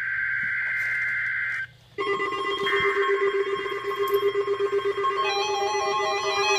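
NOAA Weather Radio SAME digital data burst for a Required Weekly Test: a harsh two-tone electronic warble that cuts off sharply about a second and a half in. After a brief pause, keyboard music with a steady low drone and shifting higher notes begins.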